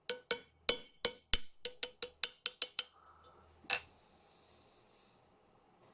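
Small hammer striking a punch against a steel rifle rear-sight spring to drive it forward out of the sight: about a dozen sharp metallic taps, each with a short ring, coming quicker toward the end. A softer knock and a brief faint hiss follow about halfway through.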